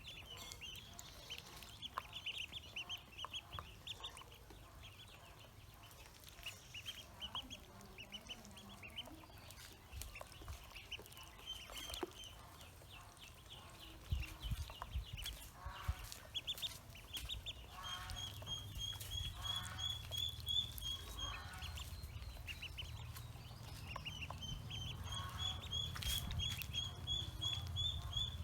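Pekin ducklings peeping: rapid runs of short, high peeps, which run together into long unbroken strings of peeping in the second half.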